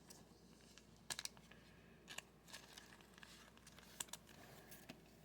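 Faint crinkling and tearing of a foil trading-card pack wrapper being handled, a few scattered crackles over several seconds.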